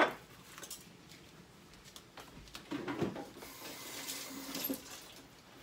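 Faint kitchen handling sounds: a few light knocks about three seconds in, then a soft rustling hiss for a second or so.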